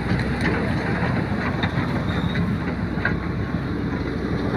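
An engine running steadily at a low, even pitch, with wind noise on the microphone.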